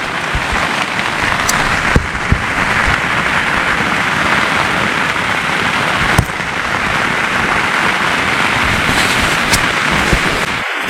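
Heavy rain falling steadily on a tent, with a few sharper drop impacts.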